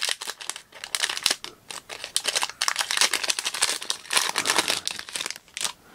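Foil wrapper of a trading-card pack being torn open and crinkled by hand: a dense, irregular crackling all through.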